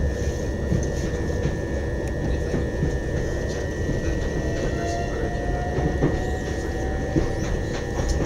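Inside the carriage of a Class 377 Electrostar electric train on the move: a steady low rumble from the running gear and a constant high whine, with scattered light clicks. A faint, slowly rising whine comes in about halfway through.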